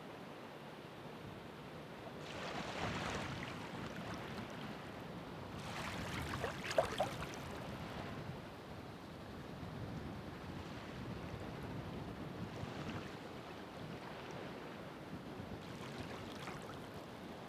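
Ocean waves breaking and washing onto the shore in several swells of surf. The largest comes about six seconds in, with some splashing.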